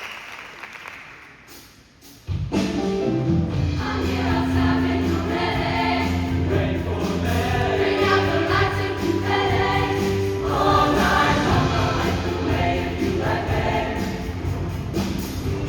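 Applause dying away, then about two seconds in a show choir starts singing together with instrumental accompaniment, held chords over a steady bass line.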